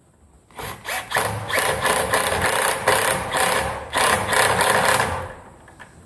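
Small Bosch 10-volt cordless impact driver driving a small latch screw into a door edge. After a short blip it runs for about four seconds as a rapid rattle of hammer impacts, with one brief pause, and stops a little before the end.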